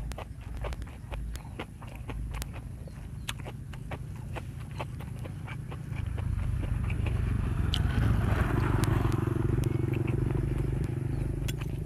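Close chewing with many short crunching clicks from the mouth. About six seconds in, a motor vehicle's engine drone comes up and is loudest a couple of seconds later as it passes, then stays under the chewing to the end.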